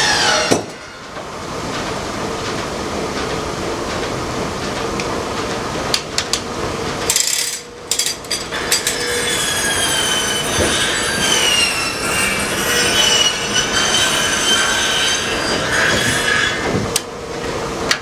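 Steam-powered sawmill at work: the circular head saw whines as it cuts a log on the carriage, its pitch sagging and recovering under load. Sharp clanks from the carriage and setworks come now and then.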